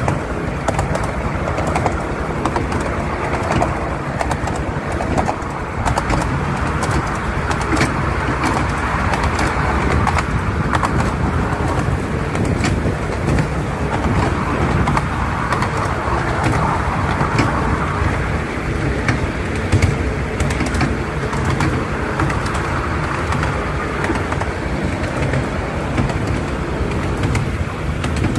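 Miniature steam train heard from a passenger carriage while it runs along the track: a steady running noise of the wheels on the rails and the locomotive working, with many small clicks throughout.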